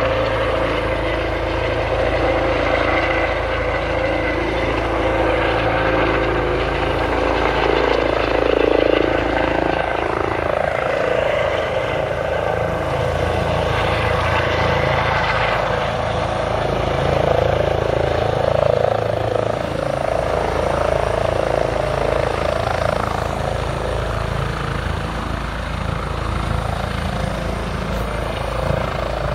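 Air-ambulance helicopter running close by at low height: a loud, steady rotor and turbine noise with a high, even whine over a low rumble, swelling a little a few times.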